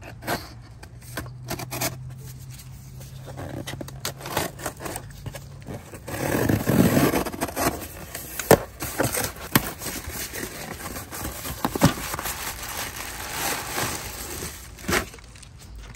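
A cardboard box being handled and opened, then the plastic bag around a jug of motor oil crinkling and rustling as it is pulled out. The rustling swells about six seconds in, with sharp taps and scrapes scattered through it.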